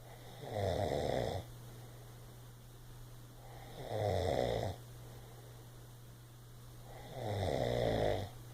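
Snoring: three loud snores at even intervals of about three and a half seconds. Each lasts about a second and rises in pitch.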